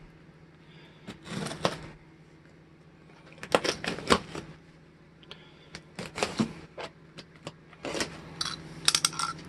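Box cutter slicing through packing tape along the seam of a cardboard box, heard as bursts of scratchy cutting and sharp clicks in several clusters, with a steady low hum underneath.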